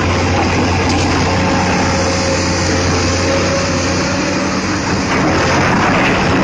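Excavator's diesel engine running steadily under load, a constant low hum with a dense rumble of noise over it.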